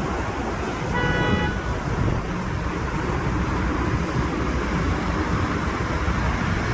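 Steady rushing noise of wind and road traffic, with one short car horn beep about a second in.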